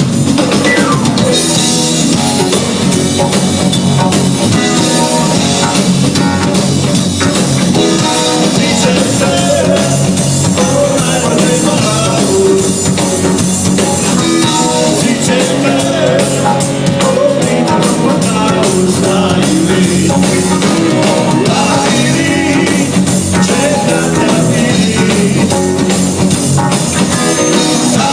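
Rock band playing live at full volume: drum kit, electric guitar and bass, with a voice singing over it.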